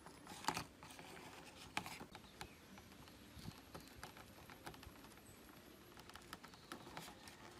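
Metal tweezers picking and scraping at the edge of an OPPO phone's cracked screen and frame: faint scattered clicks and scratches, the sharpest about half a second in and again near two seconds.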